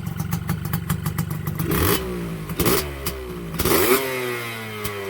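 Suzuki AX100 two-stroke single, fitted with a 25 mm Dellorto carburettor, filed cylinder, shaved head and aftermarket exhaust, idling with fast even pulses, then revved in three quick throttle blips from about two seconds in. The pitch slides back down after each blip, the last one falling slowly.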